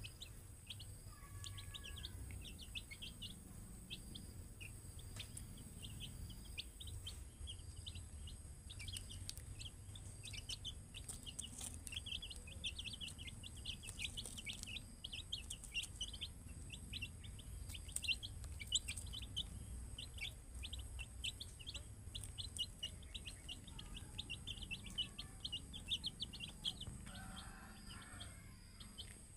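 A group of young chicks peeping: a dense, continuous stream of short high chirps, several a second, over a low rumble.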